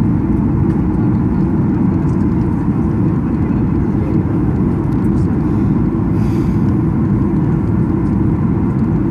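Steady airliner cabin noise heard from inside the cabin: a constant low rush of engines and airflow.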